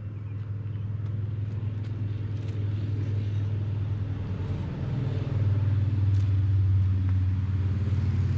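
A distant engine's low, steady hum, growing louder over several seconds and easing slightly near the end.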